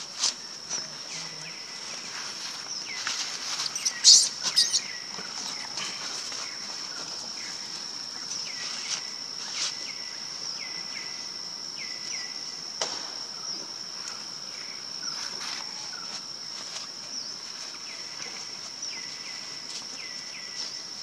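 Forest ambience: a steady high-pitched insect drone with a bird's short calls, each sliding down in pitch, repeated many times. About four seconds in comes a brief cluster of crackling rustles from dry leaf litter, the loudest moment, with a few single crackles elsewhere.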